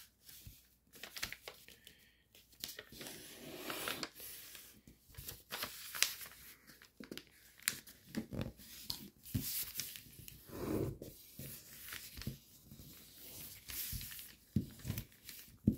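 Foil-backed origami paper crinkling and rustling as it is folded by hand and the creases are pressed flat, in short irregular scratchy crackles.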